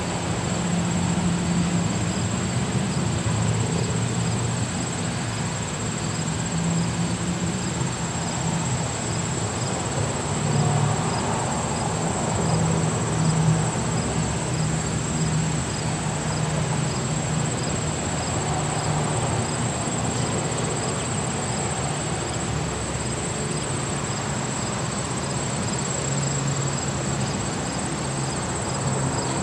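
Steady high-pitched insect trill, such as crickets, with faint regular chirps about twice a second, over a low wavering rumble.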